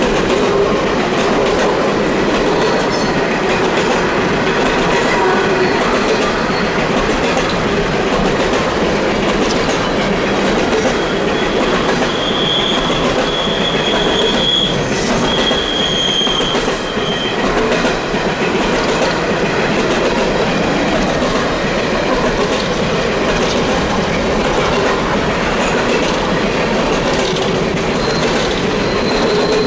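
Long Canadian Pacific coal train's cars rolling past steadily, with a thin, high wheel squeal from about twelve seconds in for several seconds and again near the end, flanges grinding on a sharp curve.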